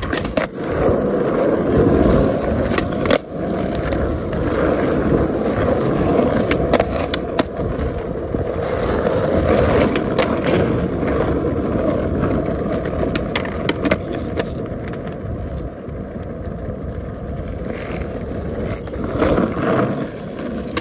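Skateboard wheels rolling over rough asphalt with a steady rumble, broken now and then by sharp clacks of the board striking the ground as the skater pops and lands tricks.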